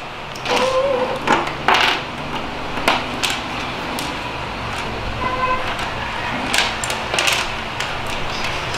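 Small plastic building bricks clicking and rattling as hands rummage through a loose pile on a tabletop and press pieces together, in irregular sharp clicks.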